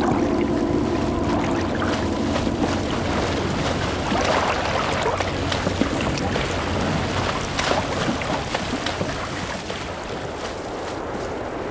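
Water sloshing and bubbling as a sound effect, a dense stream of small crackles that grows quieter toward the end.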